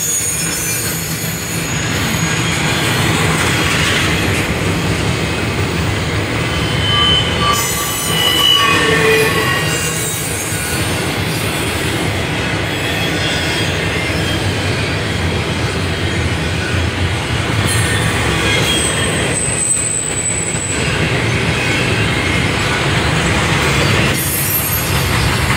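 Double-stack container train of loaded well cars rolling past at close range: a steady rumble of wheels on rail, with a few brief high-pitched wheel squeals about eight seconds in and again near twenty seconds.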